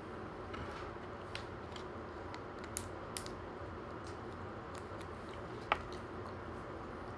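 Faint, scattered clicks and crinkles from a small plastic sample packet being handled in the fingers, with the sharpest click about two thirds of the way through.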